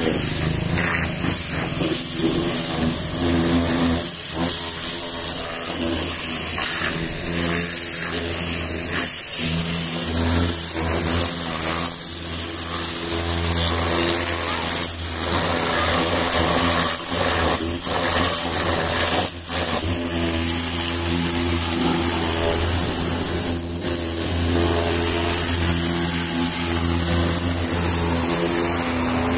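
Pressure washer running: a steady motor hum under the hiss of the water jet spraying against the car's wheel and side panel.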